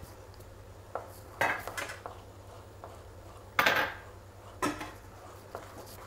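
A spatula scraping and knocking against a pan while stirring thick suji halwa: a few separate scrapes and clanks, the loudest a little past halfway.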